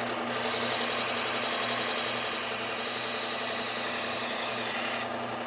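Knife blade ground against the Cubitron 120 belt of a running Bucktool low-speed belt sander: a steady hiss over the sander's motor hum, the hiss ending about five seconds in as the blade comes off the belt.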